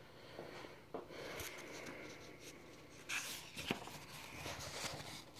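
Faint handling noise: soft rustling of paper and a few light clicks, the clearest about a second in and two more between three and four seconds in.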